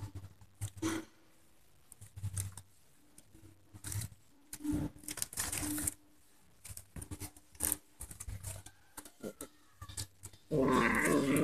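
Alaskan Malamute puppies play-fighting: scattered scuffling in dirt and twigs with short grunts. About a second before the end it breaks into loud growling.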